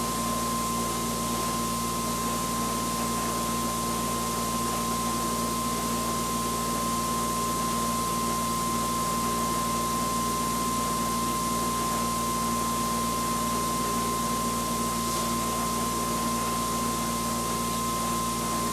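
Electric-motor-driven generator test rig spinning steadily at about 3,500 RPM: an even whirring hiss with a constant high whine and a lower hum.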